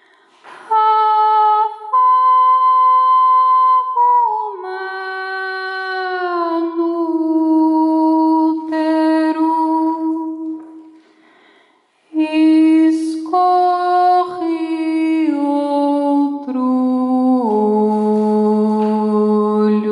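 A woman's voice, amplified through a microphone and PA, singing long wordless held tones of experimental vocal music. The pitch steps and slides downward from note to note, with a pause of about a second near the middle.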